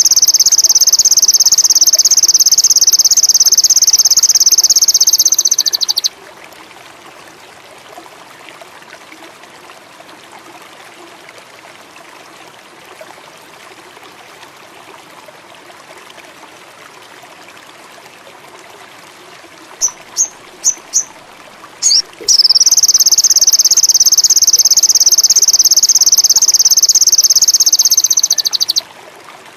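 Sogon songbird singing two long, rapid, high buzzing trills of about six seconds each: one at the start and one about two-thirds of the way in, with a few short chirps just before the second. A steady trickle of running water lies underneath.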